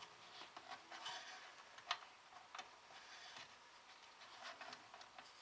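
Faint, scattered small clicks and taps of the drive board's little pin connectors being handled and worked in and out of their sockets.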